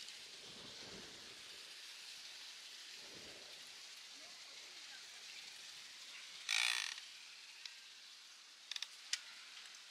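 A long-handled shovel scraping into loose soil once, about six and a half seconds in, over a steady outdoor hiss, with a couple of short sharp clicks near the end.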